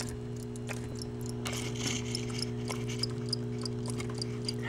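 Steady electrical mains hum with scattered faint soft clicks. From about a second and a half in, a faint high ticking comes in at about three ticks a second.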